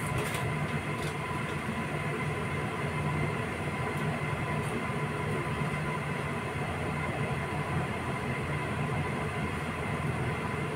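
Steady mechanical hum with an even whoosh underneath and a few faint clicks at the start, typical of a fan or appliance running in a room.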